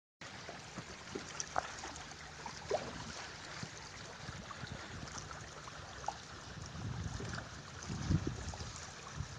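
Small waves lapping and splashing against the hull of a small boat moving through choppy water, with scattered light splashes. Gusts of wind buffet the microphone in the last few seconds.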